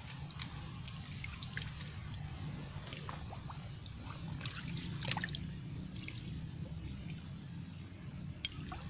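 Shallow muddy water in a mangrove creek trickling and dripping, with scattered small clicks and pops and a low steady rumble underneath.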